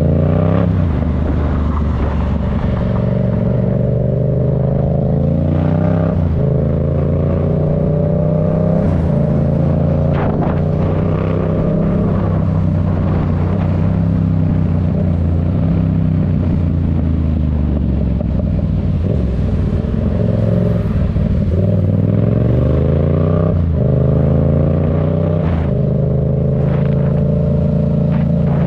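Yamaha MT-07's 689 cc parallel-twin engine breathing through an aftermarket Black Widow exhaust, ridden in traffic. The note climbs in pitch under throttle about a second in, again around six seconds and near the end, and falls away as the rider rolls off in between.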